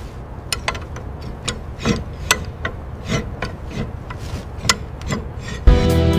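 Workshop hand-tool sounds: irregular scraping and rasping with sharp clicking taps, about two to three a second, over a low rumble. Music with a beat comes in near the end.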